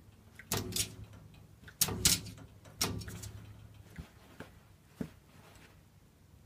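A puppy's paws batting against a mirrored closet door, making a series of irregular knocks and rattles of the mirror panel. The loudest come in the first three seconds, followed by a few fainter taps.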